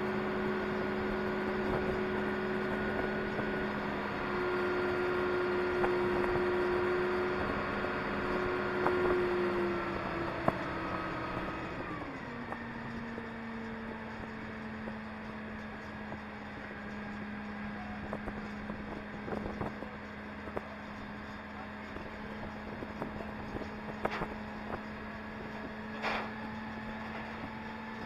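A Grove hydraulic crane's engine and hydraulics running steadily. A higher whine drops away about twelve seconds in, leaving a steady hum, and a few short knocks come near the end.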